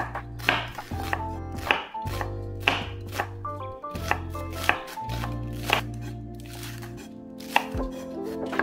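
Kitchen knife slicing a red onion on a wooden cutting board, the blade knocking on the board in short, sharp strokes about twice a second.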